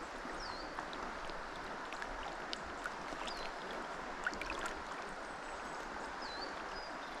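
River water rushing steadily past the bank, with three short high chirps that dip and rise in pitch: about half a second in, past three seconds, and just past six seconds.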